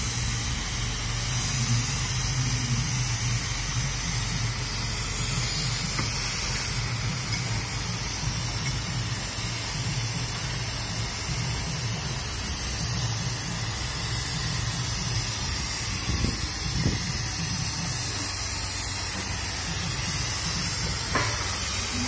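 Mobile hydraulic crane's engine running steadily, a low rumble with a constant hiss over it. A few faint knocks come in the last few seconds.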